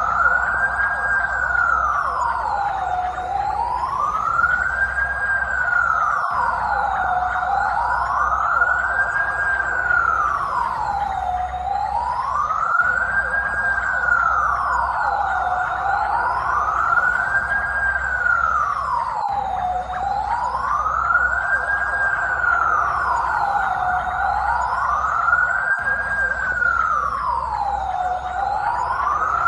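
Police siren on a slow wail: one smooth tone rising and falling in pitch about every four seconds, repeating evenly.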